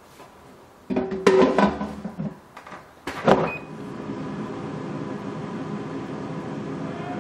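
Tefal air fryer basket pushed home with a run of knocks and clatter, the last and loudest about three seconds in. A brief beep follows, and the air fryer's fan starts and runs with a steady hum.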